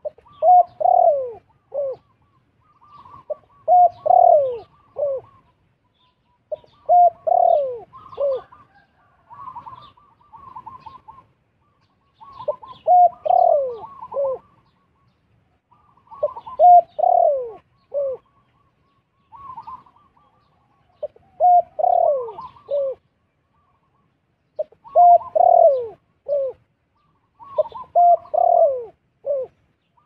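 Dove cooing: short phrases of three or four falling coos, repeated every three to four seconds.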